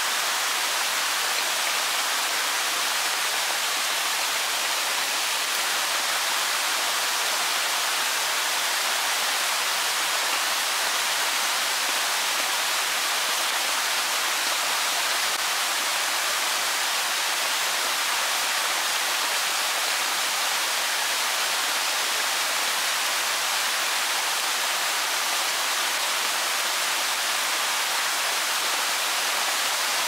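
Mountain stream rushing over rocks in small cascades: a steady, even rush of water with no pauses or changes.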